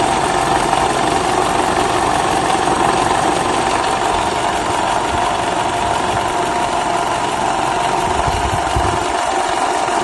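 Toyota Camry 2.5 litre 2AR-FE four-cylinder engine idling with a steady droning whine from the engine bay. It is the foreign noise the mechanic traces to worn balance shafts.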